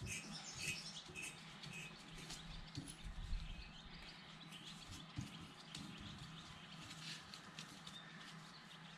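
Faint bird chirps with a few light clicks and soft knocks.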